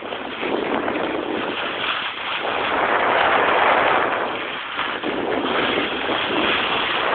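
Rushing, scraping hiss of sliding fast down a packed-snow slope, mixed with wind buffeting the microphone. It grows louder a few seconds in and eases briefly just before the five-second mark.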